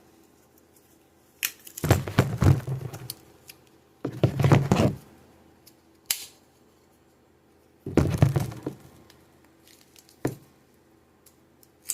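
Handling clatter of metal folding army knives, the tools being pried open and the knives knocked against each other and set down: several short clusters of knocks and clicks with quiet gaps between them.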